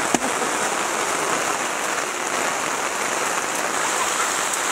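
Heavy rain drumming steadily on a tarp overhead. Just after the start comes one sharp knock of an axe striking wood.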